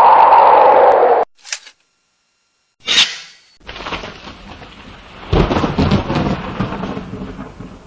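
Sound effects for a logo animation. A loud rushing noise cuts off suddenly about a second in, a short sharp sound comes near three seconds, and then a thunderclap crashes about five seconds in and rumbles away.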